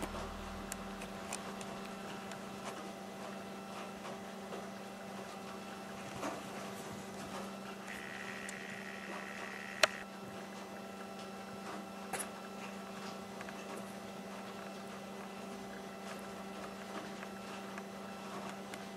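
Steady electrical hum with faint soft patter and scratching from kittens scrabbling on a blanket. About halfway a flat high tone lasts for about two seconds and ends in a single sharp click, the loudest sound.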